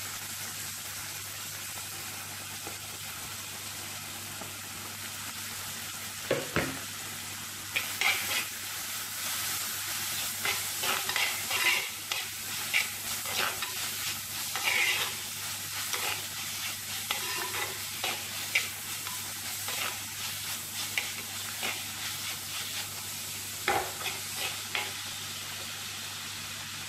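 Onions, garlic and ginger sizzling in coconut oil in an unglazed clay pot (manchatti), with a spoon scraping and clicking against the pot as they are stirred from about eight seconds in until near the end. Single knocks about six seconds in and again just before the stirring stops.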